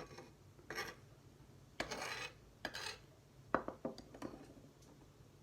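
Kitchen knife cutting into a pepper and scraping its seeds out against a hard surface: several short scrapes and knocks, one longer scrape about two seconds in.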